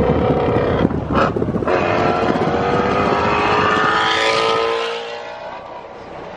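Ford Mustang Shelby GT350R's 5.2-litre flat-plane-crank V8 accelerating past at highway speed, its exhaust note climbing steadily in pitch for about three seconds. It fades near the end as the car pulls ahead.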